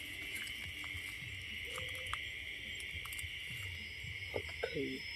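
Steady high-pitched chorus of night insects, with footsteps and light rustling in dry bamboo leaves; near the end a short low-pitched call sounds twice.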